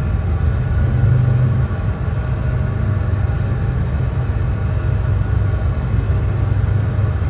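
Brown noise: a steady, deep hiss, strongest in the low bass and fading toward the treble, without change or events.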